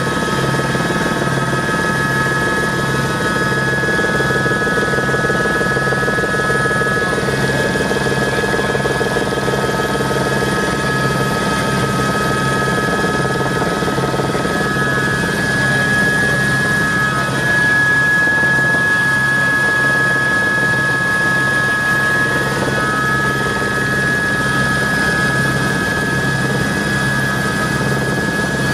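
Helicopter running steadily: a continuous rotor and engine drone with a steady high whine and an even low pulsing throughout.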